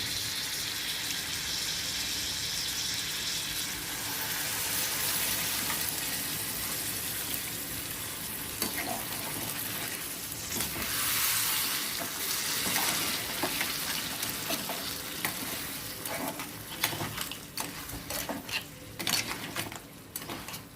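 Crab pieces sizzling in thick spice gravy in a kadai, a steady hiss that swells for a couple of seconds about halfway through. In the second half the spoon scrapes and clicks against the pan as the crabs are stirred.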